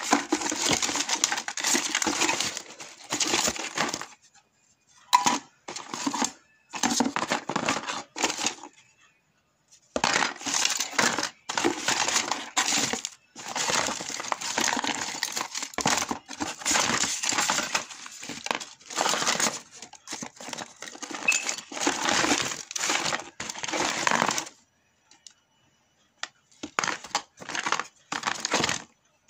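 A hand rummaging through a cardboard box of scrapped mobile phones and phone parts, the pieces clattering and clinking against each other in long runs broken by a few short pauses.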